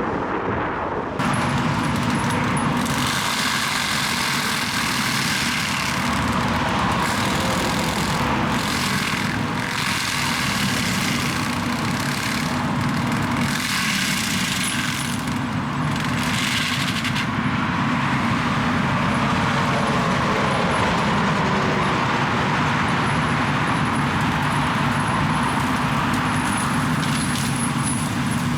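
Diesel engine of heavy construction machinery running steadily, with stretches of louder noise from the machine working.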